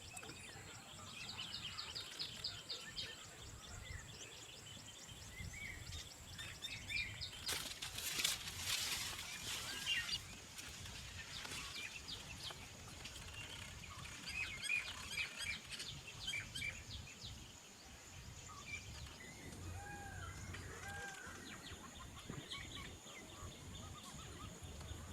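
Birds chirping with many short, quick calls, over a steady high tone. There is a noisy rustle about eight seconds in, and a few lower arched calls about twenty seconds in.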